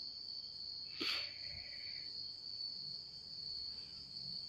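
A steady high-pitched trill runs throughout, with one short sharp knock about a second in.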